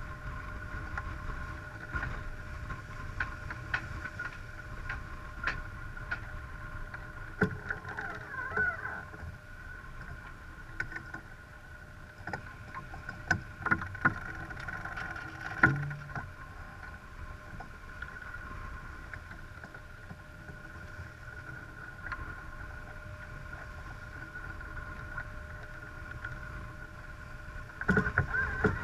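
Sailboat under way: water rushing along the hull and wind on the microphone in a steady rumbling hiss, with scattered sharp clicks and knocks from deck gear such as the winch being worked, one knock louder about halfway through. The rush grows louder near the end.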